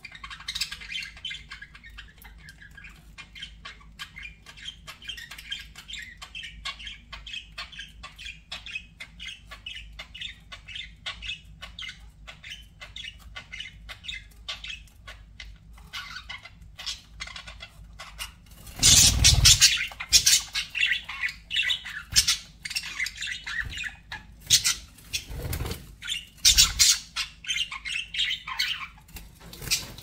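Pet budgerigars chattering in a fast, continuous run of small chirps and clicks. From about two-thirds of the way in, several much louder squawks and noisy bursts break in.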